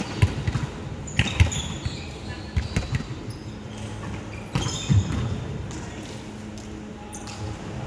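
Volleyball rally on an indoor wooden court: hands striking the ball in a string of sharp slaps, sneakers squeaking on the floor, and the sounds ringing in a large hall.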